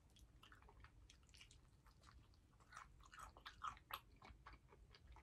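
Faint close-up eating sounds of biting and chewing a fried chicken wing: soft scattered mouth clicks, a little busier around three to four seconds in.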